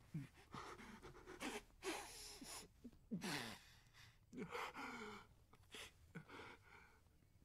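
A man breathing hard in a string of gasps and sighs, some carrying short voiced moans, repeated every second or so.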